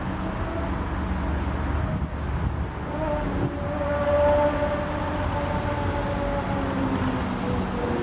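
Low rumble of road traffic with wind on the microphone. A humming tone comes in about three seconds in, is loudest around four seconds, and fades near the end, as a vehicle passes.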